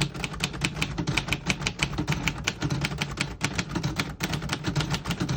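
1948 Royal Quiet De Luxe manual portable typewriter being typed on: a fast, steady run of key strikes, several a second.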